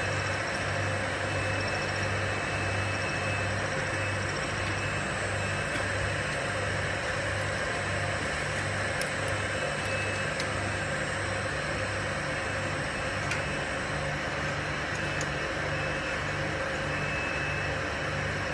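Automatic air-blowing bottle rinsing machine running: a steady hiss with a low hum that pulses evenly about twice a second, and a few faint ticks.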